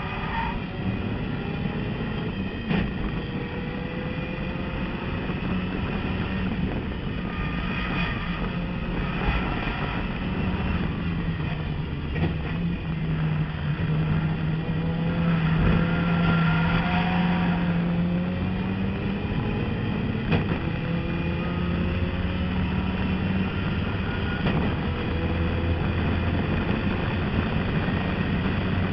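Turbocharged racing car engine heard from inside the cabin, running hard under load. Its pitch rises and falls as the car goes up from second to fourth gear, with a few sharp knocks along the way.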